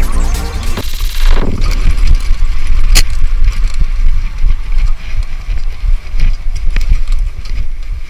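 Mountain bike riding over a dirt trail, picked up by a chest-mounted action camera: steady wind and ride rumble, with a few sharp knocks from the bike, one about three seconds in and another near seven seconds.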